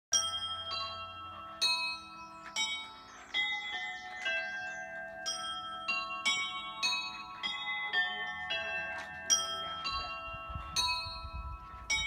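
A ring of church bells hung in a temporary frame, rung by hand with ropes one after another at about two strikes a second. Each bell rings on and overlaps the next.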